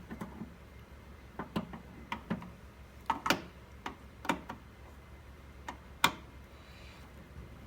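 Irregular light clicks and knocks, a dozen or so scattered through, the sharpest about three and six seconds in: the plastic casing of a flat-screen LCD TV being handled.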